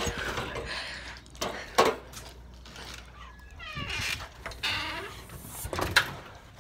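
Glass storm door being opened and pulled shut: sharp knocks and latch clicks, the loudest about two seconds in and another near the end, with a short squeak in between.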